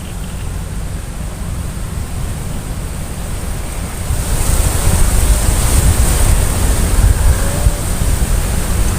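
Wind buffeting the microphone as a low, rushing rumble, growing stronger about four seconds in, with a steady high hiss above it.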